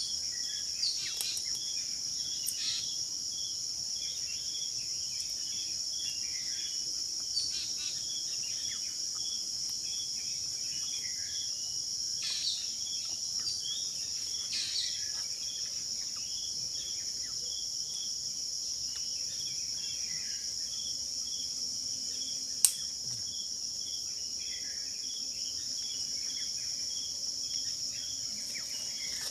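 Outdoor insect chorus: a steady high buzz of crickets with one chirping in a regular pulse a little under twice a second. Scattered short chirps and a single sharp click about three-quarters of the way through.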